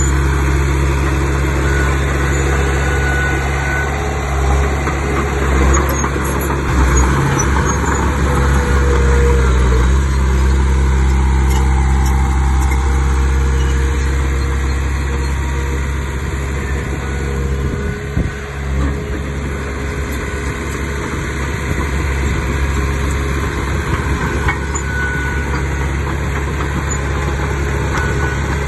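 Heavy diesel engine of earthmoving machinery running steadily, with a brief dip and a few knocks about two-thirds of the way through.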